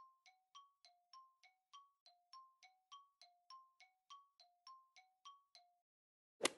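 Quiz countdown-timer sound effect: quiet, even tick-tock of short pitched ticks alternating between a lower and a higher note, about three a second, stopping shortly before the end. A single sharp, louder hit follows near the end, as the answer is revealed.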